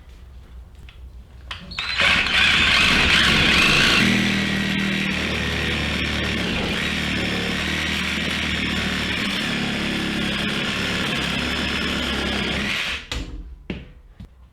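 Sawzall reciprocating saw starting about two seconds in and running steadily for about eleven seconds, cutting the rubber center out of a worn engine mount bushing, then stopping. It is loudest in its first couple of seconds.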